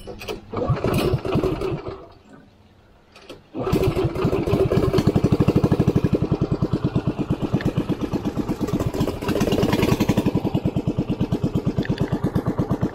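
A small boat engine starts abruptly about three and a half seconds in, then runs with a steady, rapid chugging beat. A shorter burst of noise comes about a second in.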